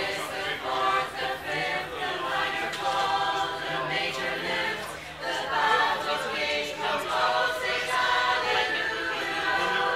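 Women's a cappella choir singing unaccompanied in harmony.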